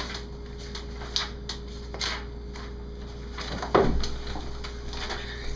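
Paper rustling and being handled on a table, with scattered light knocks and taps, over a faint steady hum. A short louder sound falling in pitch comes about four seconds in.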